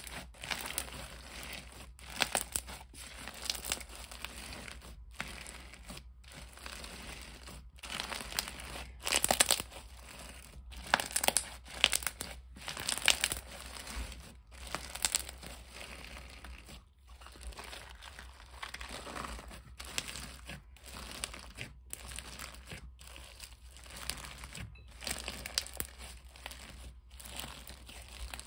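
Crunchy crumb-filled slime being squeezed and kneaded by hand, crackling and crunching in irregular bursts about once a second.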